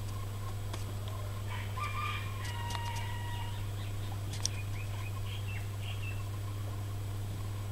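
Chickens calling in the background: a drawn-out, crow-like call about two seconds in, then a few short clucks, over a steady low hum.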